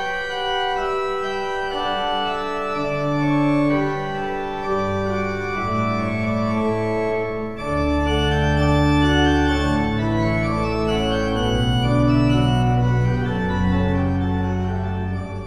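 Organ music: slow, held chords, with deep bass notes coming in about five seconds in and growing louder in the second half.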